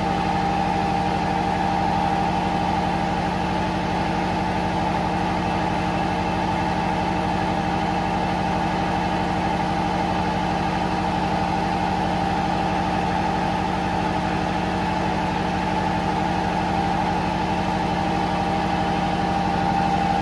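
Engine-room machinery running steadily at constant speed: an even engine drone with a low hum and a higher steady tone, unchanging throughout.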